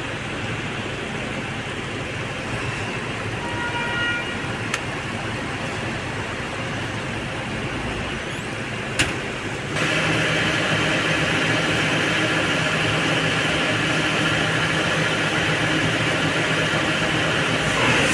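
Tata Hitachi excavator working with its hydraulic rock breaker against rock: a steady mix of engine and hammering noise that gets louder just before ten seconds in. A short horn toot sounds about four seconds in.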